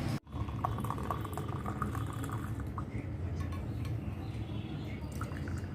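Light clinks and taps of kitchen utensils and dishes over a steady low hum.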